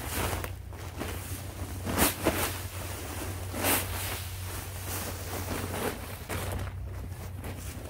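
Dry fallen leaves rustling as they are shaken out of a brown paper yard-waste bag onto a leaf pile, with the paper bag crinkling; a few short swishes, the loudest about 2 s and near 4 s in, over a steady low rumble.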